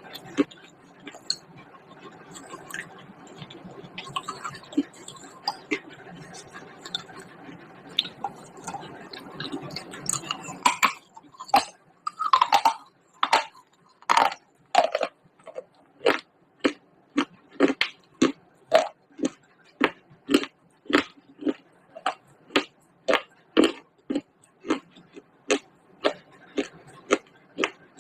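A person chewing pieces of baked clay pot close to the microphone: small crackles at first, then from about eleven seconds in a steady run of loud, sharp crunches, about one and a half per second.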